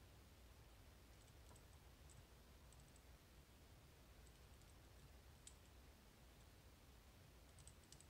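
Near silence with faint, scattered clicks from a Capitol Industries magnetic cam lock's rotors being dragged by a rare-earth magnet while the lock is held under tension; the clicks come closer together near the end.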